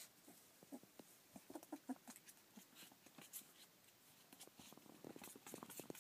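Rough collie puppies about 25 days old play-wrestling: faint scuffling and clicking, with a few small squeaks and grunts about a second in. The clicking grows busier near the end.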